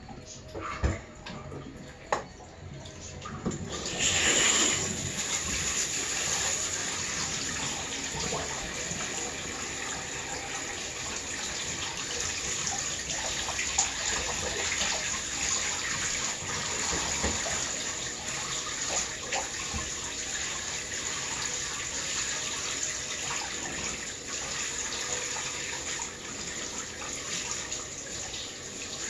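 Water running steadily into a bathtub while a dog is being washed, starting about four seconds in after two sharp knocks.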